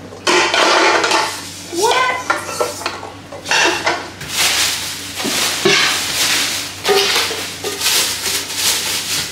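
Aluminium cooking pots clattering and knocking against each other as they are handled and unpacked, with the crinkle of plastic wrapping in irregular bursts.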